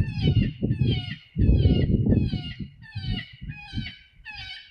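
High, plaintive animal cries repeating about twice a second, each a short falling wail, of the kind of prey-distress sound played to lure coyotes in. Wind buffets the microphone throughout, heaviest about a second and a half in.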